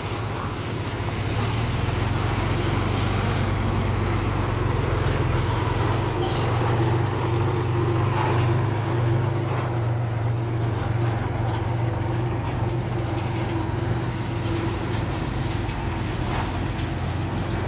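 Diesel engine of heavy earthmoving equipment running steadily under load, swelling over the first couple of seconds and then holding, with a few faint knocks.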